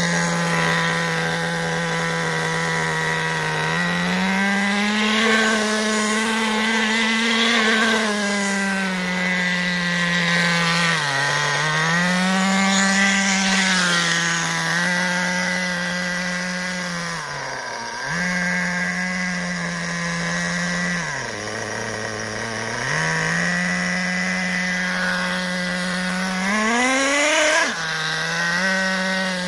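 The small nitro engine of a radio-controlled buggy running continuously, its pitch holding steady between throttle changes and dipping several times as the throttle is eased off and opened again. Near the end it revs up quickly and then drops off sharply.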